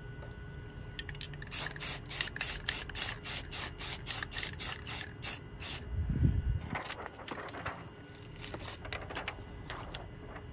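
Rattle can of black spray paint fired in quick short bursts, about four a second, through a paper stencil onto a rifle. The spraying stops after about six seconds, followed by a low thump and lighter scattered hisses and scrapes.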